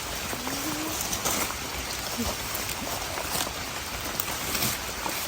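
Steady rain falling, with scattered sharp hits of individual drops. About half a second in there is a brief rising voice-like sound.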